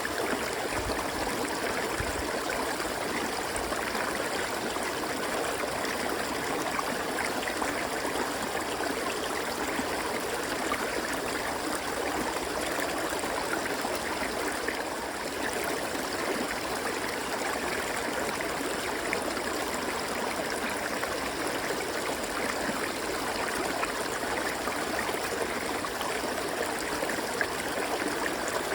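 Steady rushing and burbling of a flowing river.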